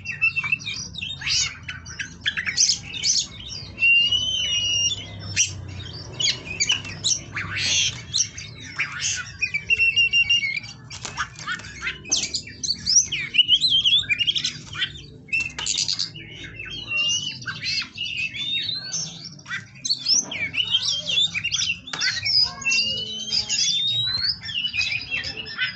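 Oriental magpie-robin (kacer) singing a long, varied run of quick chirps, clear whistles and harsh squawky notes without a break, with a rising whistle near the end.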